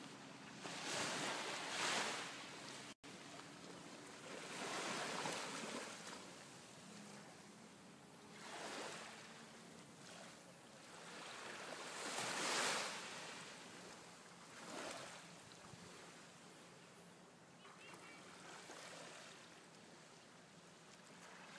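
Small waves washing onto a sandy beach, swelling and falling away every few seconds, with a brief dropout about three seconds in.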